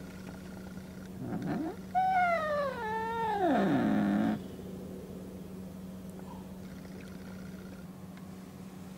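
A cat yowling: a short rising call about a second in, then a drawn-out yowl of about two seconds that falls in pitch and turns rough and breathy near its end. It is a hostile threat call at a first meeting with another cat.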